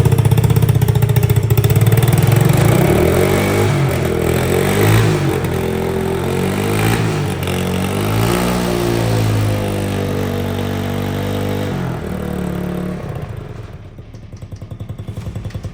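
Yamaha TTR110 pit bike's small four-stroke single-cylinder engine running in gear on its freshly fitted Timbersled snow-bike track, revved up and down several times. It drops back to a quieter idle near the end.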